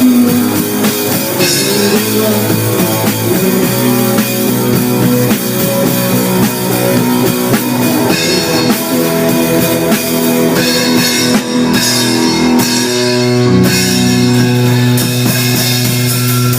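Rock music with drum kit and guitar playing continuously.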